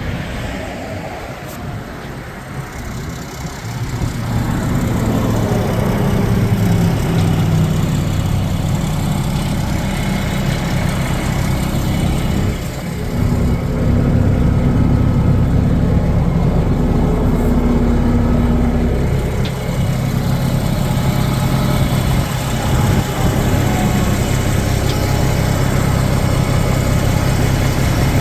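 Mack 11.9-litre inline-six diesel engine of a concrete truck running. It grows louder about four seconds in, shifts in pitch for a few seconds, then runs steadily with a short dip about twelve seconds in.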